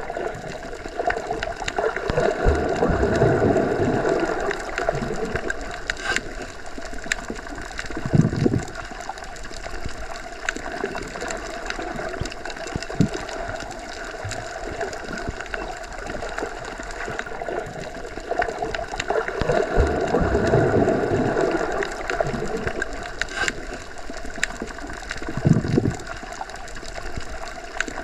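Underwater water ambience: a steady muffled rush with low swells that rise and fade twice, and a short louder gush about 8 seconds in and again near the end.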